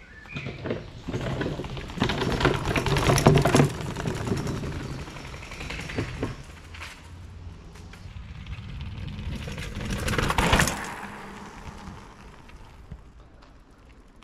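A mountain bike riding over trail ground and stairs, with tyre noise, rattling and clatter. It is loudest about two to four seconds in and again briefly about ten seconds in.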